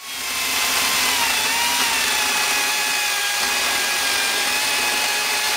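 Makita 18 V cordless chainsaw running steadily: a high electric-motor whine over the hiss of the chain. The whine dips slightly about a second and a half in.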